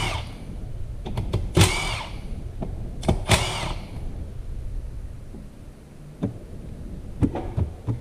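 Handheld power tool spinning out E4OD transmission valve-body bolts in two short bursts, each winding up and then down, followed by a few light metallic clicks and knocks of loose bolts and parts.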